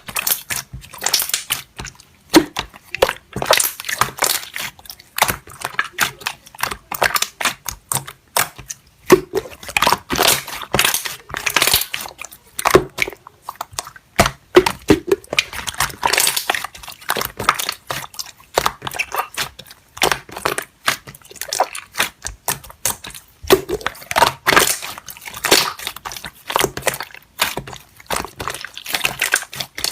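Slime being pressed and worked by hand, giving a continuous run of crackling, popping clicks with short squishy bursts.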